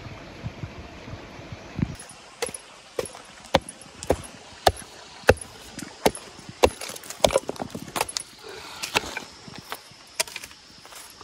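A small iron pick digging white clay out of a rock seam. A couple of seconds of scraping are followed by sharp clinks of metal on stone, about two a second and somewhat irregular, with loose chips rattling.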